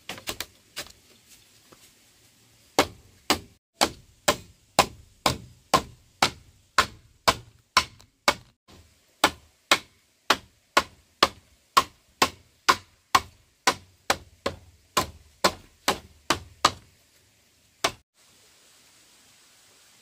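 A hand tool striking wood over and over, about two blows a second for some fifteen seconds, after a few lighter taps, then one last blow after a short pause.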